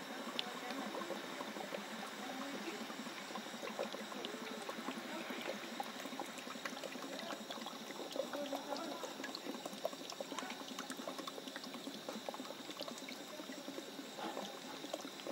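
Water pouring steadily from a plastic bottle into a kadai of fried chicken masala, trickling and splashing into the masala as the gravy is made.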